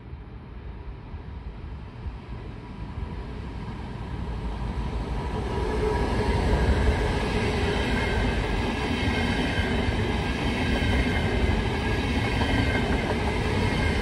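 A MÁV Stadler KISS double-deck electric multiple unit approaching and running through the station without stopping. The rolling rumble of wheels on rails grows louder over the first six seconds and then stays loud and steady, with a faint steady whine, as the carriages pass.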